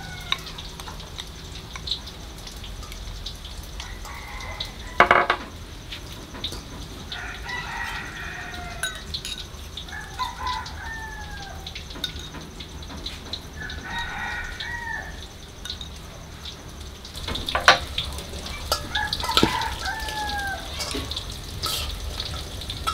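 A rooster crowing about four times, each crow ending in a falling tail. A few sharp clinks, louder than the crows, come from utensils knocking against a steel mixing bowl.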